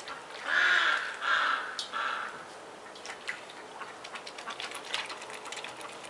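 A swan gives three short nasal honking calls in quick succession in the first two seconds, followed by scattered light clicks and taps.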